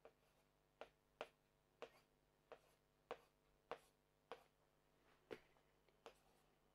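Faint taps of a marker pen striking a whiteboard while letters are written, a sharp tap roughly every half-second.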